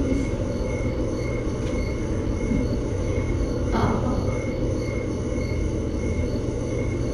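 Steady low rumbling background noise, with a faint high tone pulsing about three times a second and a brief soft rustle about four seconds in.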